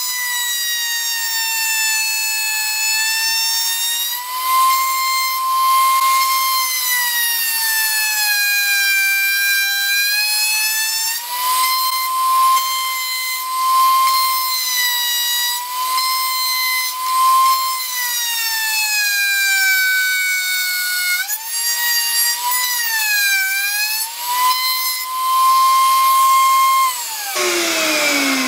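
Table-mounted router running at speed with a high whine, its pitch sagging again and again as the flush-trim bit cuts the melamine-faced chipboard along the template. Near the end it is switched off and winds down with a steadily falling pitch.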